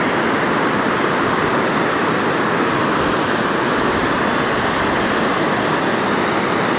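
Steady rushing of water pouring through a dam spillway, an even, unbroken noise.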